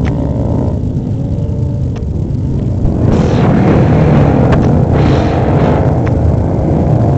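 Engines of a pack of road-racing motorcycles running at race speed across beach sand, getting louder from about three seconds in.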